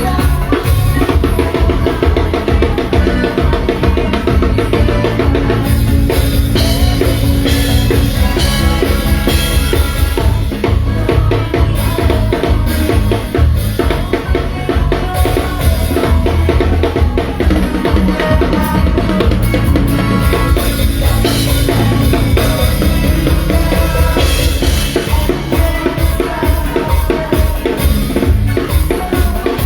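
Live band playing loudly, with a drum kit's bass drum and snare driving a steady beat over bass and other instruments.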